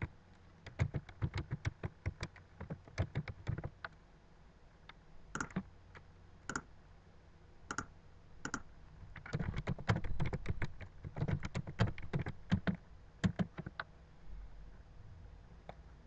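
Computer keyboard typing in irregular bursts: one run of keystrokes in the first few seconds and another about two-thirds of the way through. A few louder single clicks stand apart in between.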